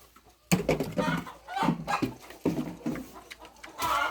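Farm animals calling: a series of about four short, loud, pitched cries starting about half a second in.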